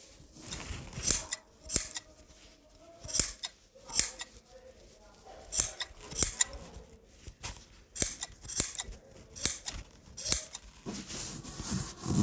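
Tailor's scissors snipping cloth, a separate sharp cut about once a second.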